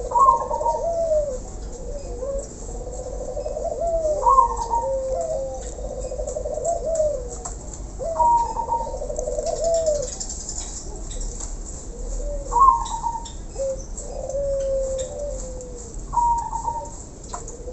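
Caged doves cooing in repeated phrases about every four seconds. Each call opens with a short higher note and runs into a rolling, trilled coo lower down, and the calls of several birds overlap.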